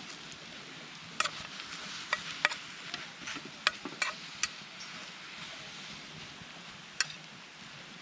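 Brussels sprouts in butter and water sizzling in a small frying pan over a campfire, giving a steady hiss. The sprouts are being stirred, and the utensil clicks and scrapes sharply against the pan, most often between about one and four and a half seconds in, with one more click near the end.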